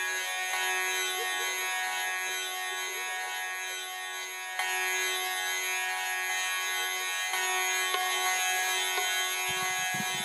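Instrumental music: a steady held drone of sustained notes with a few faint plucked or tapped accents, and low drum strokes starting near the end.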